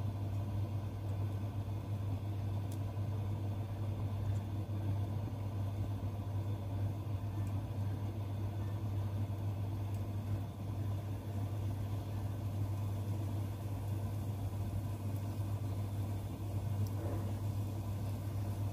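A steady low hum throughout, with faint sizzling and a few light crackles from breaded tempeh sticks frying in shallow oil in a pan.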